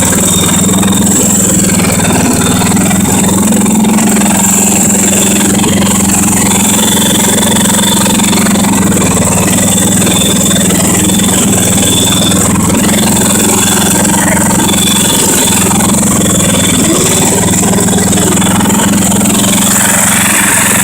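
10 hp Tecumseh single-cylinder engine of a garden tractor running steadily at an even speed on a newly replaced carburetor.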